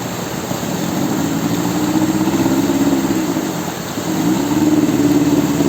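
Outboard motor driving a water-jet drive, running with its pitch rising about a second in, dropping back shortly before the end, then rising again as the throttle is opened.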